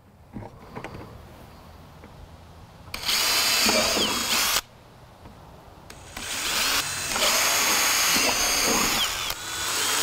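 DeWalt cordless drill boring holes through the wall of a plastic five-gallon bucket. It runs in bursts: a short one about three seconds in, then a longer one from about six seconds, with the motor whine rising and falling as each bit breaks through the plastic.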